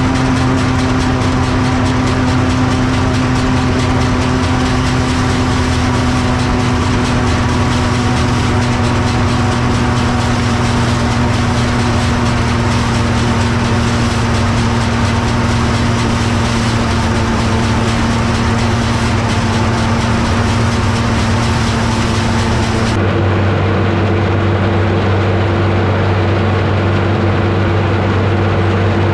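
Massey Ferguson 31 combine harvester running under load while threshing oats: a steady engine-and-machinery hum with a hiss of straw and chaff. About 23 seconds in the sound changes suddenly, the hiss dropping away and leaving a lower, steadier hum.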